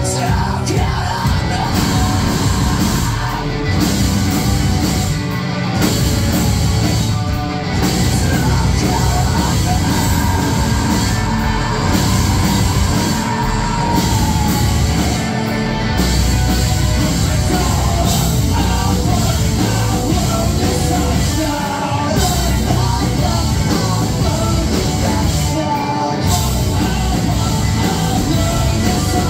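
Live rock band playing loud, with electric guitars, bass and drums and a singer yelling and singing into the microphone.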